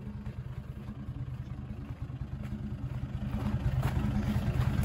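Toyota Land Cruiser's engine idling steadily, a low rumble that grows louder towards the end.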